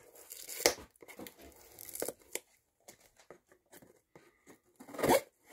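A butter knife sawing and tearing at a package's wrapping, with irregular scraping and crinkling strokes; the loudest tears come about half a second in and near the end.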